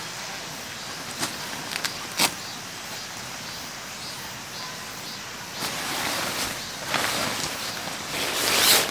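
Tent fabric rustling as a door panel is gathered up and handled, with gravel crunching underfoot. A few sharp clicks come about one to two seconds in, and the rustling grows louder near the end.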